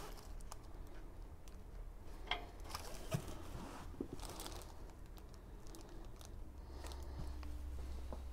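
Faint, scattered small clicks, knocks and rustles of screws and bench parts being handled while fastening MDF panels to a folding workbench.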